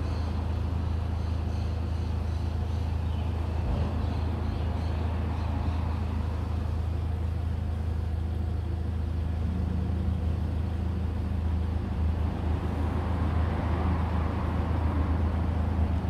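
Steady low rumble with a faint hiss above it, unchanging throughout, with no distinct events.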